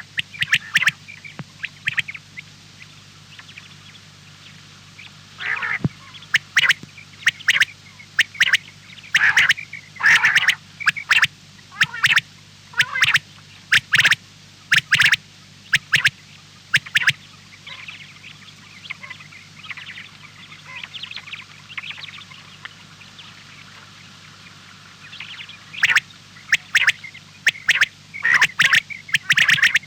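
Repeated short, harsh duck-like quacks in clusters, with a quieter stretch in the middle, over a steady low hum.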